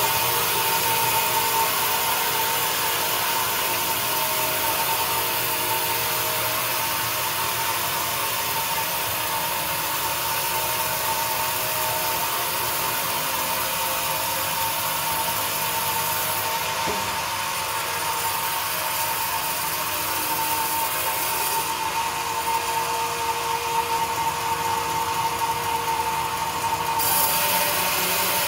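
Large sawmill band saw running and cutting through hard teak, a steady whine under the hiss of the blade in the wood. The high cutting hiss thins for a few seconds in the second half.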